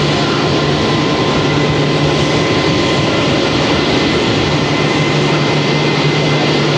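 Airbus A320 jet engines running steadily at idle on the ground: a loud, even rush with a constant whine.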